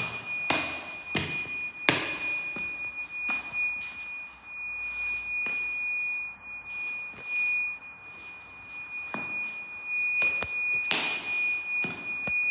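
A steady, high-pitched electronic tone from an unidentified device sounds without a break, with scattered clicks and knocks over it.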